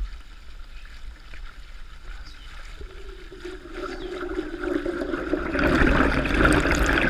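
Water splashing and trickling, with small scattered splashes, growing steadily louder over the second half.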